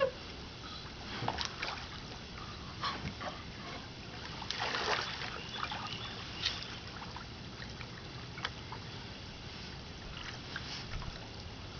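Hands splashing and sloshing in shallow water beside a kayak, in scattered short splashes with a longer stretch of sloshing about four and a half seconds in.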